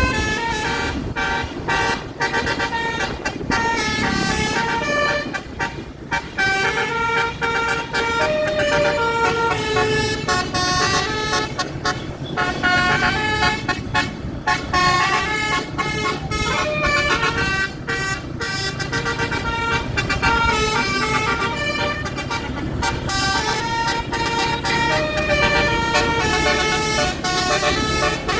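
Tour bus's basuri telolet horn playing a tune in quick stepped notes, over the steady rumble of the bus engine.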